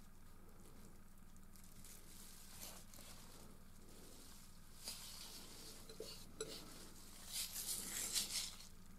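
Palette knife scraping oil paint in soft strokes, with a few light taps and the loudest run of scrapes near the end, over a faint steady hum.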